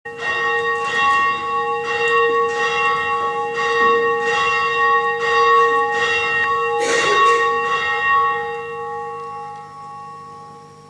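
A single church bell ringing, struck roughly once a second so that its tones keep sounding, then left to die away over the last few seconds.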